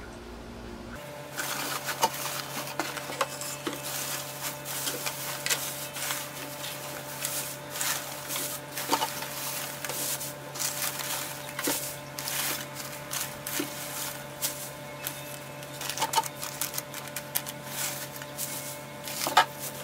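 Shredded paper packing rustling and crackling as hands rummage through it and lift it out of a cardboard box, starting about a second in, over a steady low hum.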